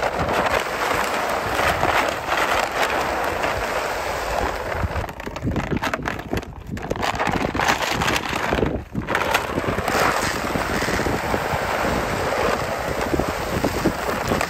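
Shelled corn pouring from a bag into a deer feeder's hopper: a steady rattling hiss of kernels, with two brief breaks in the middle.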